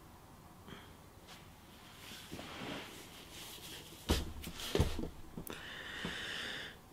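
Quiet room with a man rubbing his face and shifting in a chair, giving a couple of soft thumps about four and five seconds in, then a long breathy exhale near the end.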